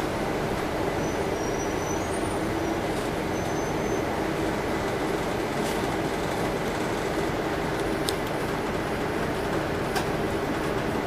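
Inside a moving city bus: a steady drone of engine and road noise, with a few faint high squeaks in the first seconds and a few clicks or rattles later.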